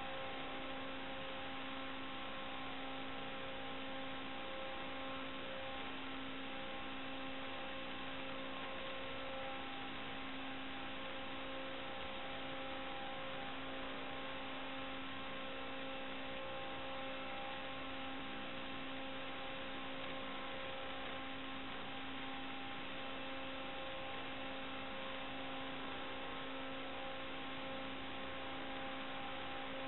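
Steady electronic hum with hiss: a few fixed tones over even noise that never change in pitch or level. This is the noise on an analog FPV video link's recorded audio, not the quad's motors.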